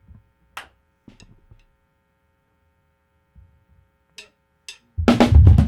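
A faint electrical hum with a few short clicks and taps, then about five seconds in a rock band with drum kit and guitar comes in loud.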